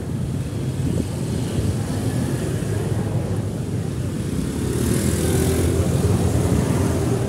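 Motorcycle and scooter traffic running on a city street, a steady low engine rumble that swells for a couple of seconds about five seconds in.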